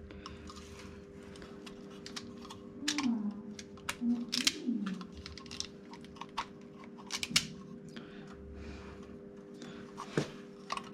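Irregular light clicks and taps of small parts and wiring being handled, over a steady low hum. A brief hummed voice is heard about three to five seconds in.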